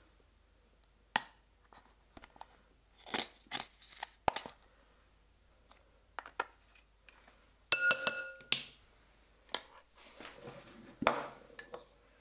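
Kitchen clinks and taps: a spoon and containers knocking against a glass mixing bowl and ceramic pots as seasonings are added to gyoza filling. About eight seconds in, one sharper clink rings briefly.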